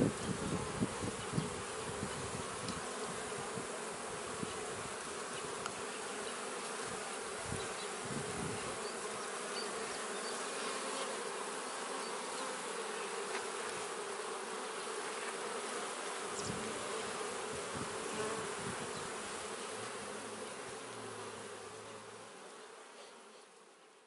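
Honey bees buzzing at a hive entrance, the steady drone of many bees flying in and out. A few low bumps in the first seconds, and the hum fades out near the end.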